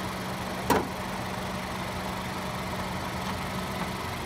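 Idling 1.5-litre turbocharged four-cylinder engine of a 2017 Honda Civic Hatchback Sport, heard with the hood open as a steady hum, with one sharp click less than a second in.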